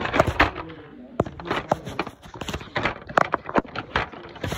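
A quick, irregular run of clicks and knocks from hard plastic pieces being handled and knocked together.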